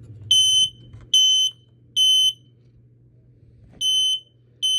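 Kidde i12060 smoke alarm sounding on test in its temporal-three pattern: three shrill high-pitched beeps, a pause of about a second and a half, then the next group of three begins.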